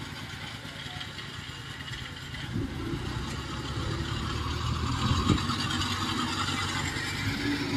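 Engine of a small farm hauler carrying sacks of harvested rice, running steadily and growing louder as it drives closer. There is a single sharp clank about five seconds in.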